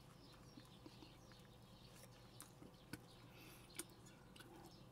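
Near silence: room tone with a few faint clicks, the two clearest about three and four seconds in.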